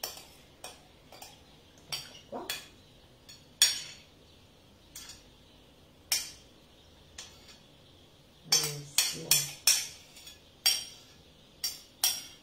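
Metal spoon clinking and scraping against ceramic plates and a food mold as diced melon and zucchini are spooned in and pressed down: scattered sharp taps, with a quick run of several taps about two-thirds of the way through.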